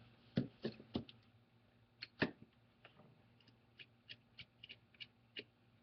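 Light clicks and taps from handling a tablet's opened metal frame: it is set down on the tabletop, with two louder knocks about two seconds in, then a string of faint ticks as a small Phillips screwdriver engages the tiny screws holding the I/O board.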